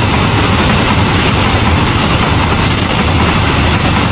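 Train running past close by: a loud, steady rumble of wheels on the rails.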